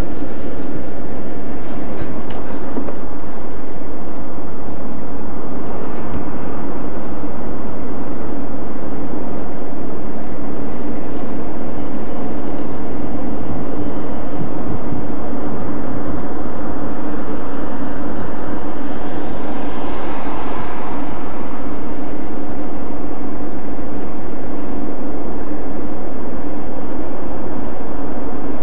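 Steady engine drone and road noise inside a moving coach travelling at freeway speed, with a low hum and a fainter higher tone running throughout. A brief swell of hiss comes about two-thirds of the way through.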